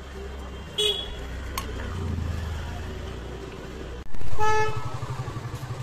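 Street traffic with vehicle horns: a short toot about a second in, then a loud horn blast of under a second about four seconds in, over a low engine and traffic rumble.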